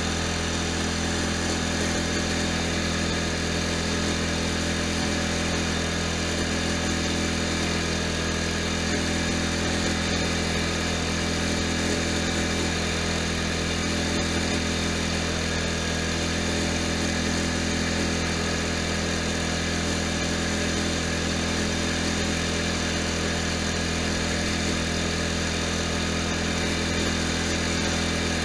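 Riding lawn tractor's engine running at a steady speed as the tractor drives along, an even drone that does not change.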